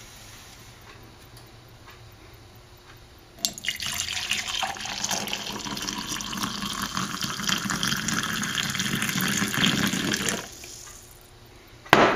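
Hot coffee poured in a steady stream into a ceramic mug for about seven seconds, the splash and gurgle of liquid filling the cup, then the pour stops. A short, sharp knock near the end is louder than the pour.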